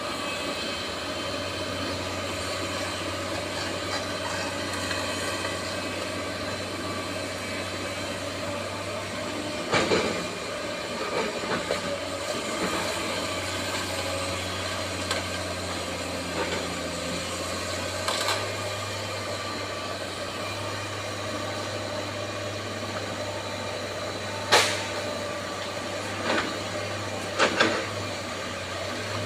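Bulldozer's diesel engine running steadily, with a few sharp knocks, the loudest about 24 seconds in and two more close together near the end.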